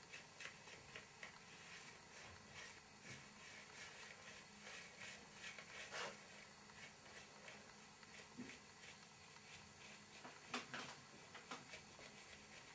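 Faint scratching and light clicks of a paintbrush worked over a rough, dry papier-mâché surface, with a couple of slightly louder soft knocks, one about midway and one near the end.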